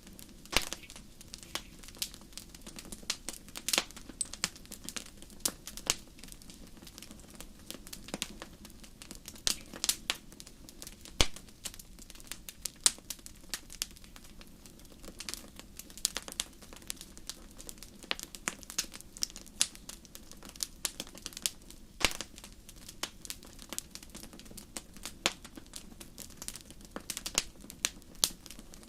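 Wood fire crackling in a fireplace: irregular sharp pops and snaps, some much louder than others, over a steady low background of the burning.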